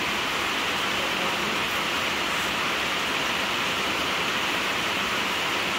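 Steady rush of water, an even hiss that holds without a break or change.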